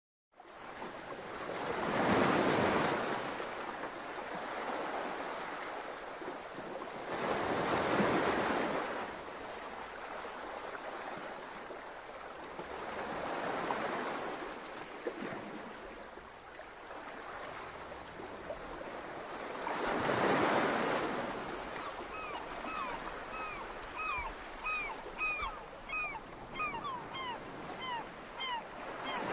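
Sea waves washing in, the rush of water swelling and fading about every six seconds. Near the end a run of short, high chirps repeats about twice a second over it.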